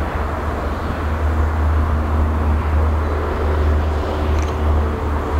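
Soviet LV-class 2-10-2 freight steam locomotive approaching from a distance under steam, under a steady, loud low rumble.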